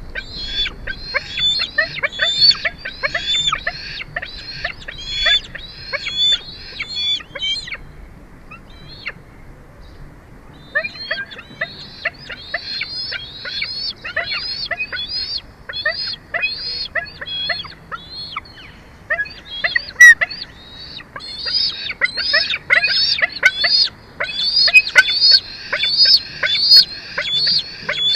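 Bald eagle calling: long runs of rapid, high, squeaky chirps that break off for about three seconds around eight seconds in, then resume through the rest.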